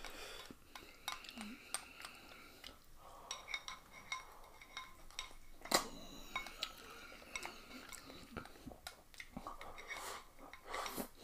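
Chopsticks scraping and clinking against a glass bowl as the last noodles are scooped out, a string of faint, scattered clicks and taps with a sharper clink a little under six seconds in.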